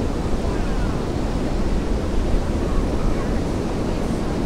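Steady rush of ocean surf, with wind on the microphone.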